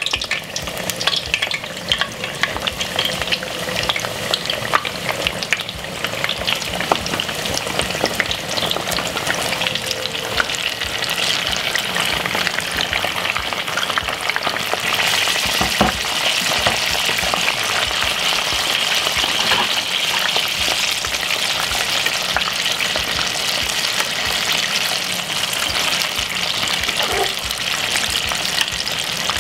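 Breadcrumb-coated chicken pieces deep-frying in a pot of hot oil: a dense, steady crackling sizzle that grows fuller about halfway through as more pieces go in. A metal utensil knocks against the pot a few times.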